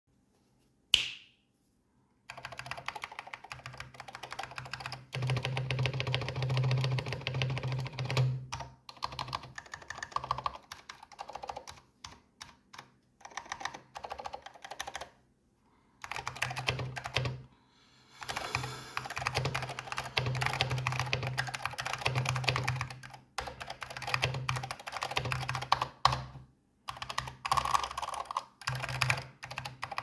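Typing on a Samsung keyboard with Alps Orange switches: a single sharp keystroke about a second in, then fast continuous typing, with a few brief pauses, echoing in the room.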